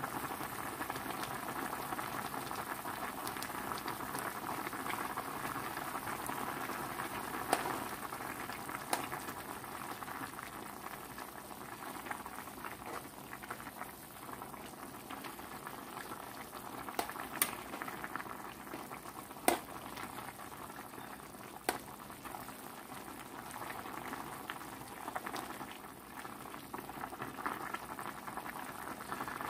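Pot of sponge gourd and chicken soup boiling steadily with a constant bubbling hiss. A few sharp single clicks come from the stirring spoon knocking the pot, the loudest about two-thirds of the way through.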